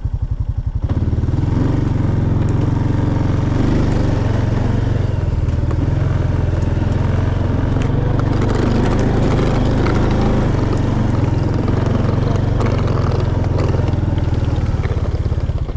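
A vehicle's engine idling, then pulling harder about a second in and running steadily, with road noise and small clicks over the engine's drone.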